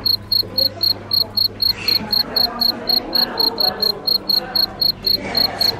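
Short high-pitched beeps repeating evenly, about four a second, starting abruptly at a cut in the edit, over a low steady hum and faint voices.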